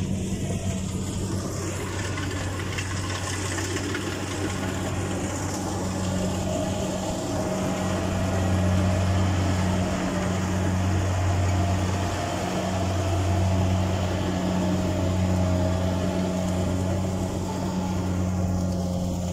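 Rice combine harvester running as it reaps: a steady, even engine hum with the noise of its working machinery, swelling a little louder about eight and again about thirteen seconds in.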